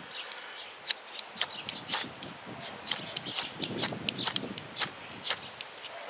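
Ferro rod being scraped hard with a striker in a run of about a dozen short, sharp rasping strokes, irregular at two to three a second, throwing sparks down into a palm-fiber tinder nest to light it.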